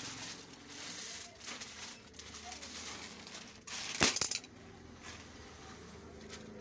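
Plastic wrapping on packaged suit fabric crinkling and rustling as the packs are handled, with one brief, much louder burst of crinkling about four seconds in.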